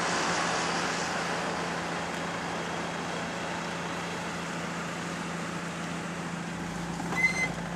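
Road noise inside a moving car: a steady hiss of tyres and wind over a low, even engine hum, easing slightly as the car slows. A brief high-pitched squeak near the end.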